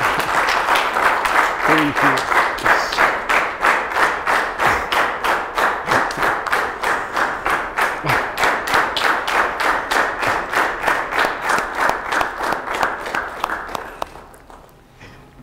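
Audience applause that settles into steady rhythmic clapping in unison, about four claps a second, then fades out near the end.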